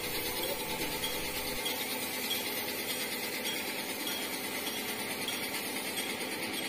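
Compressed-air paint spray gun hissing steadily as it sprays paint.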